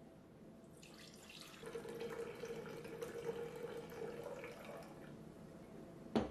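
Home-canned cherry juice poured from a glass jar into a glass pitcher, splashing and gurgling for about four seconds. The pour tapers off, then a single sharp knock comes near the end.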